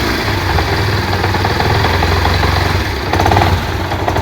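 Yamaha SZ-R single-cylinder motorcycle engine idling with a rapid, continuous khat-khat knocking, which the mechanic traces to the clutch housing side of the engine.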